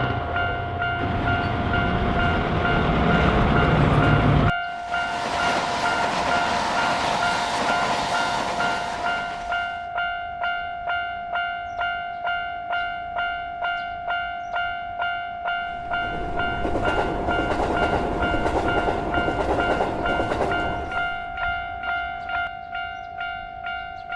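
Railroad crossing alarm ringing in a steady repeating ding at about two strokes a second, while trains rumble and rush past. The train noise cuts off suddenly about four seconds in, and another train passes shortly after the middle.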